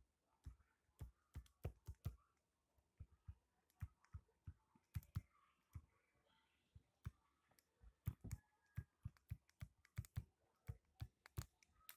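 Stylus tip tapping and clicking on a tablet screen during handwriting: a scatter of short, sharp, irregular clicks, about two or three a second, with a brief lull midway.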